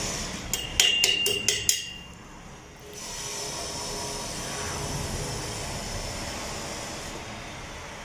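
A handful of quick metallic taps with a ringing tone, five in about a second, followed by a steady hiss.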